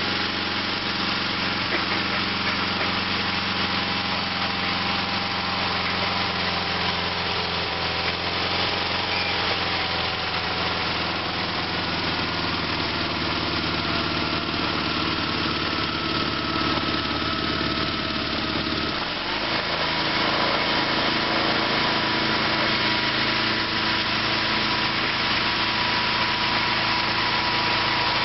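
Sears SS/16 garden tractor's Onan twin-cylinder engine running steadily as the tractor pushes dirt with its front dozer blade. About two-thirds of the way through, the engine note changes and gets slightly louder.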